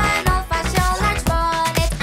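Upbeat children's music with a steady drum beat and bright melody notes.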